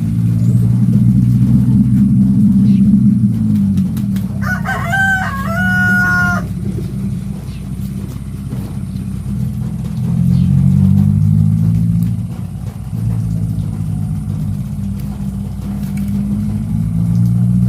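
A rooster crows once, about four to six seconds in, over a steady low engine drone that swells and fades.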